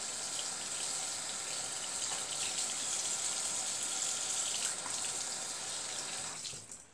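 Water running steadily from a sink tap, shut off near the end.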